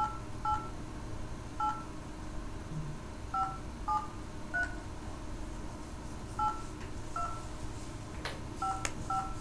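Telephone touch-tone dialing: about ten short two-note keypad beeps at uneven intervals as a phone number is keyed in, with two sharp clicks near the end.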